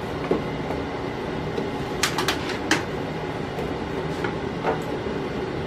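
Spoon stirring thick pancake batter in a plastic bowl, making a handful of sharp clicks and taps against the bowl, three of them close together about two seconds in, over a steady background hum.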